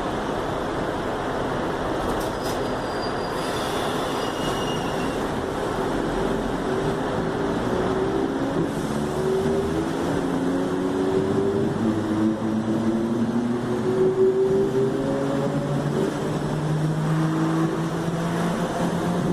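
Mafersa/Hitachi Series 1700 electric multiple unit's traction motors whining as the train accelerates, several tones climbing slowly and steadily in pitch over a running rumble.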